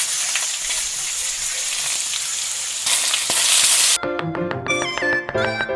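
Food sizzling as it fries for about four seconds, getting louder near the end, then cut off abruptly by light instrumental music with quick plucked notes.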